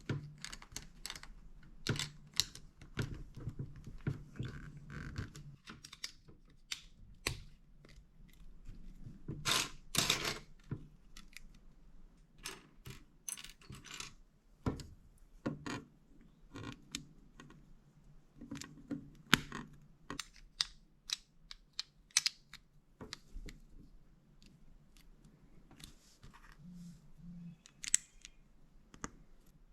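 Loose plastic building bricks clicking and rattling while a bag of parts is opened and sorted through, a run of scattered sharp clicks with a louder stretch about ten seconds in.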